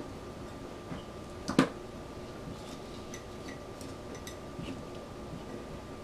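Cucumber spears being pushed and packed into a glass jar by hand: one sharp knock about a second and a half in, then scattered faint light clicks, over a faint steady hum.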